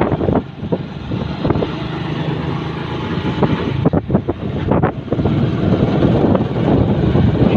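Wind buffeting the microphone on a moving motor scooter, in irregular gusts, with the scooter's engine running under it as a low hum.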